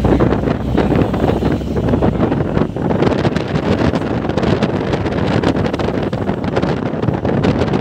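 Loud wind buffeting the microphone through the open side window of a moving vehicle, over road and engine noise; a low drone drops away about two seconds in.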